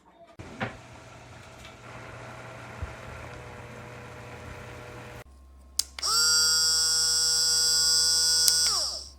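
Small battery-powered personal blender motor running with a steady hum. About six seconds in, after a click, a much louder, higher whine starts, holds steady, then falls in pitch as the motor winds down near the end.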